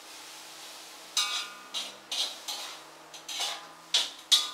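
Kitchenware clinking and knocking: about seven sharp, short clinks after roughly a second of quiet, some with a brief ring.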